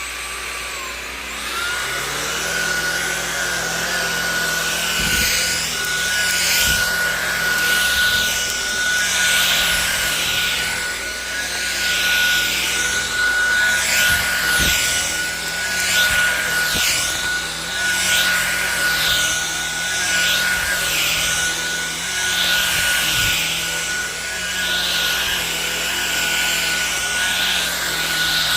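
Cordless stick vacuum running on carpet, its motor spinning up to a steady high whine in the first two seconds and then holding, with a rushing hiss that swells and falls as it is pushed back and forth picking up debris, and a few light knocks.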